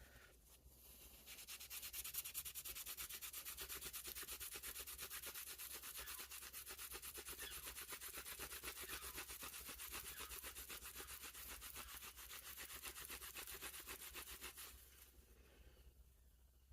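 Quick, steady back-and-forth rubbing as the bone handle scales of a pocket knife are hand-buffed with metal polish. It starts about a second in and stops a couple of seconds before the end.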